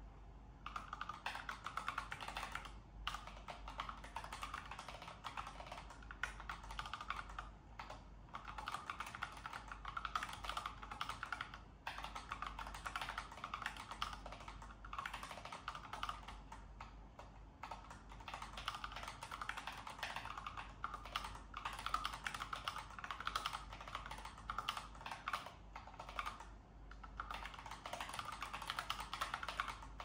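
Continuous typing on a Dygma Raise 2 split mechanical keyboard fitted with pre-lubed 50-gram switches: a dense run of key clacks that starts about half a second in and breaks off for short pauses every few seconds.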